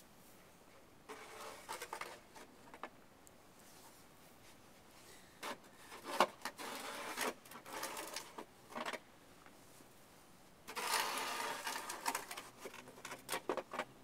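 A plastic snow shovel scraping and pushing snow off a vehicle's roof, in three rough bursts of a few seconds each, with sharp clicks and knocks from the blade.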